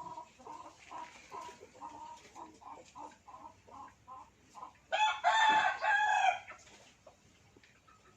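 A rooster crowing once, the loudest sound, about five seconds in, after a run of short, evenly repeated clucking notes.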